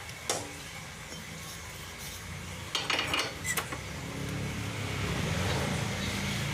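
Metal tools and steel parts clinking and knocking: one sharp click near the start, then a quick cluster of clinks about three seconds in. A low steady hum builds up in the background after that.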